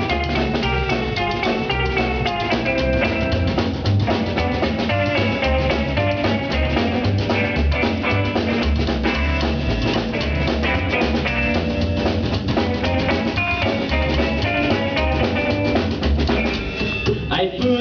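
Loud instrumental rock music: a steady drum-kit beat with heavy bass, under guitar lines, with no vocals yet.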